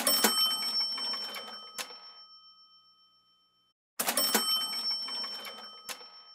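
Cash-register "ka-ching" sound effect played twice, about four seconds apart: each time a quick metallic rattle with a bell that rings out and fades over about three seconds.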